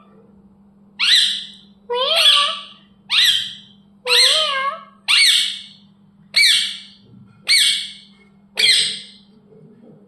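Indian ringneck parrot squawking repeatedly, about eight loud calls roughly a second apart, each call rising and then falling in pitch.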